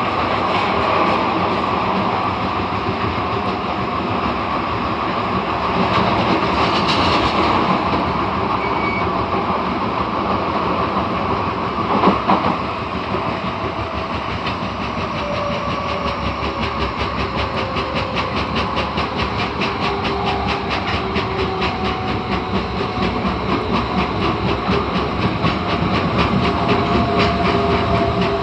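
Osaka Metro Tanimachi Line 22 series subway train running between stations: steady running noise with faint motor tones sliding in pitch. There is one knock about twelve seconds in, and a fast, even wheel clatter through the second half.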